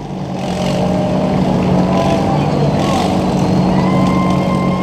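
Racing lawn tractor's small engine running at a steady, unchanging speed.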